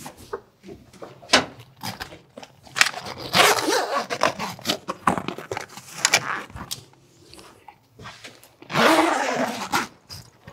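Tent camper's corner zippers being run along the canvas, with fabric rustling and small clicks of handling. Two stronger zipping runs come about three seconds in and near the end.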